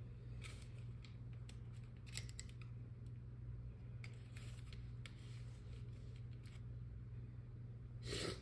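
Small scissors cutting a decal out of its sheet: faint scattered snips and paper rustles, with a louder one near the end, over a steady low hum.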